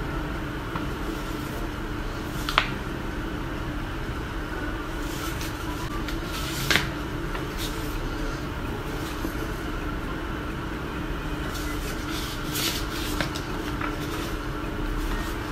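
Loose sheets of drawing paper being handled and shuffled by hand, with two sharp clicks and a few brief rustles, over a steady low background hum.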